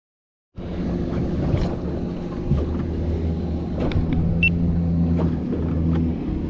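Boat motor running steadily with a low hum and a few short clicks and knocks. It starts suddenly about half a second in, after silence.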